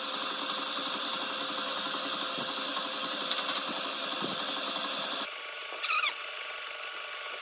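Electric stand mixer running steadily, whisking egg whites and sugar into a meringue on the way to stiff peaks; the sound drops a little in level about five seconds in.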